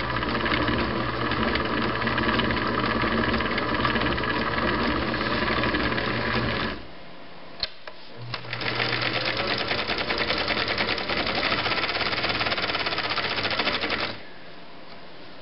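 Viking Type 21 sewing machine stitching in its low gear, with a steady, quick stitching rhythm. It stops after about seven seconds, gives a couple of sharp clicks, then runs again for about six seconds before stopping.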